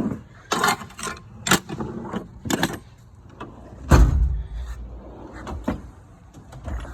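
Steel tool box drawers being handled: a run of sharp metallic clacks and rattles, with one heavy thud about four seconds in, as one drawer is shut and another opened.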